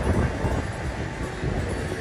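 Steady low rumble of fighter jet engines passing overhead at a distance.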